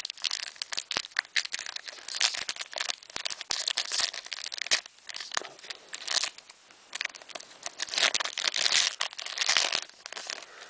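Foil wrapper of a Pokémon trading card booster pack crinkling and tearing as it is opened by hand, in irregular bursts of rustling.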